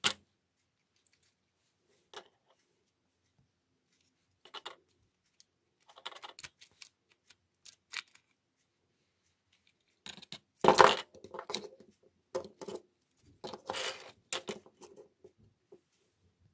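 Plastic clicks and scrapes from a Braun Series 5 electric shaver's housing as its battery and circuit-board unit is lifted and slid out. They come as scattered short clicks, with the loudest cluster about two-thirds of the way in.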